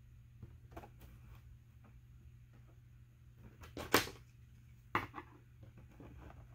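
Light clicks and knocks of 3D-printed plastic frame strips being handled and pressed into place around a wax foundation sheet on a wooden tabletop. The loudest knock comes about four seconds in, with a second sharp one about a second later.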